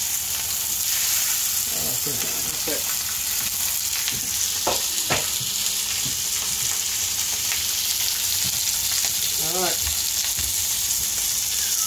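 Salmon fillets frying skin-side down in olive oil, a steady sizzle, with two light clicks about five seconds in.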